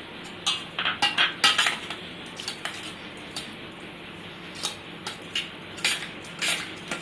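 A spoon clinking and scraping against a strainer of washed poha (flattened rice) as lemon juice is stirred in: a quick run of clinks in the first two seconds, then scattered single taps.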